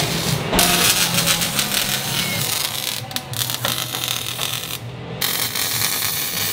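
Arc welding on a steel exhaust pipe: a steady crackling hiss from the welding arc, broken off briefly about half a second in and again near the five-second mark.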